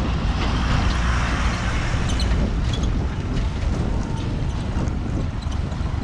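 A heavy goods truck driving past close by on an unpaved gravel road: engine rumble and tyre noise, loudest in the first two seconds and then easing off.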